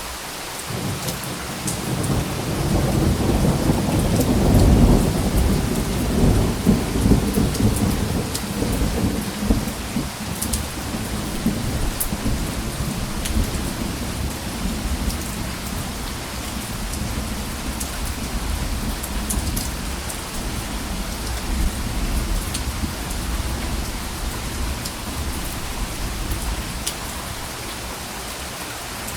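Steady rain with a long, low rumble of thunder that swells in the first seconds, is loudest about five seconds in, and slowly dies away. Scattered sharp drop ticks sound over the rain.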